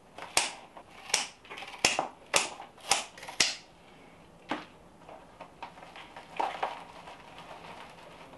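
Scissors snipping through Pink Princess philodendron stems: about seven sharp snips in quick succession over the first four and a half seconds. Softer rustling of the plant's leaves follows.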